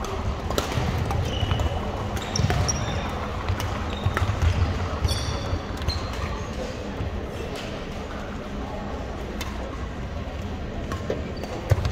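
Badminton rally on a gym court: sharp racket strikes on the shuttlecock, short sneaker squeaks on the hardwood floor and thudding footfalls, in a reverberant hall with background chatter.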